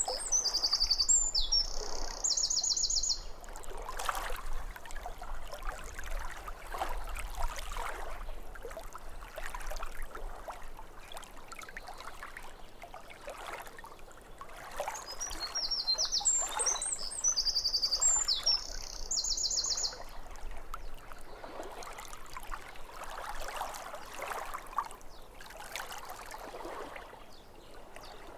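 Small waves lapping irregularly at a lake shore, with a songbird singing a brief high phrase ending in a fast trill right at the start and the same phrase again about sixteen seconds in.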